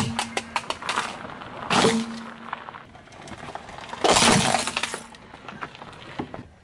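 Car tyre crushing plastic toys. First a crackle of snapping plastic track pieces and a sharp crack, then, about four seconds in, the loudest sound: a pink plastic case with a clear, glass-like cover shattering into shards under the tyre.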